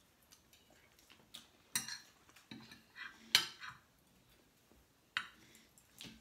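Knife and fork clinking and scraping against a plate as food is cut and eaten, a few sharp clinks among softer scrapes, the loudest about three and a half seconds in.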